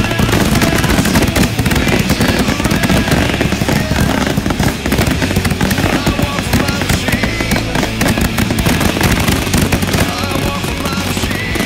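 Consumer firework cakes firing: a dense, continuous run of pops and crackling bursts with no gaps, mixed with background music.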